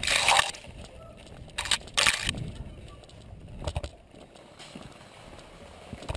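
Spruce branches swishing and scraping against a head-mounted camera in three loud rushes over the first couple of seconds, followed by quieter rustling and a few crunching steps on dry fallen leaves and twigs.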